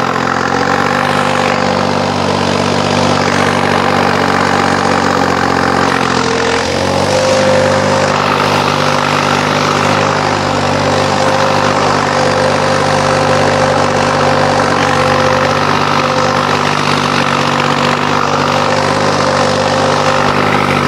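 New Holland 5620 tractor's diesel engine, its fuel pump settings modified, running steadily under load while pulling a tillage implement through the soil. The engine note sags briefly about six seconds in, then picks back up.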